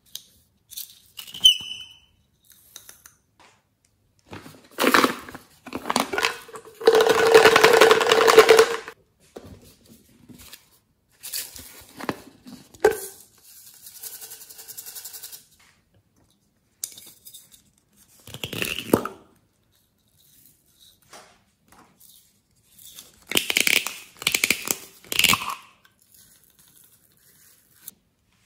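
Small plastic containers handled and shaken, pouring glitter, sequins and tiny foam beads into a glass dish in a series of short rattling pours. The longest and loudest pour, about seven seconds in, runs for about two seconds.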